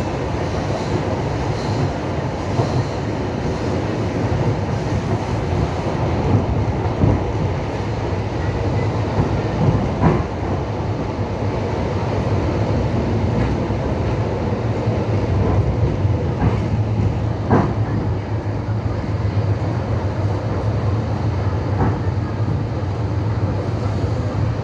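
Train rolling along the track: a steady rumble with the clatter of the wheels, and a few sharper knocks here and there as they cross rail joints.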